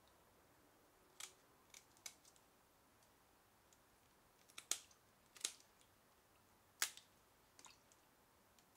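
Red-handled kitchen scissors snipping through crawfish shells, a series of sharp, short snips at irregular intervals, the loudest about midway and near the end of the second third.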